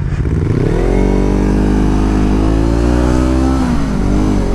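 Motorcycle engine pulling under acceleration: the pitch climbs in the first second, rises slowly, then drops sharply near the end at a gear change and starts climbing again. The bike has little low-end pull and needs frequent shifting, which the rider describes as "no grunt".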